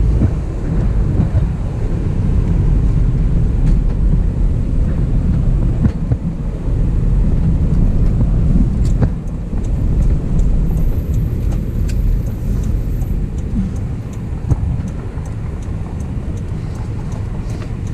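A vehicle on the move: steady low engine and road rumble, with a few light clicks.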